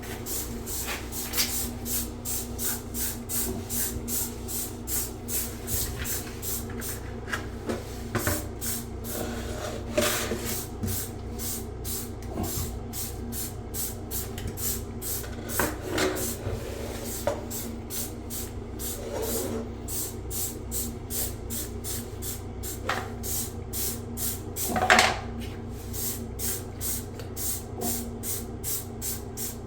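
Bidet parts being scrubbed with a brush in short, regular strokes, about three a second, with a few knocks of the parts being handled, the loudest about 25 seconds in.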